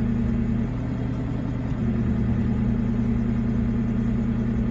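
Off-road vehicle engine idling steadily, a low even hum, heard from inside the cab.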